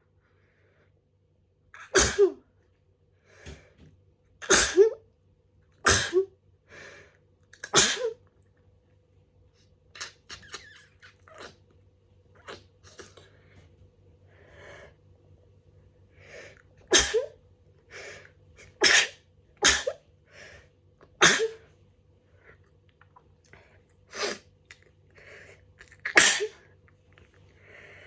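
A person sneezing over and over from hay fever: about ten loud, sharp sneezes in two runs, four in the first eight seconds and six more in the second half, with sniffs and breaths between them.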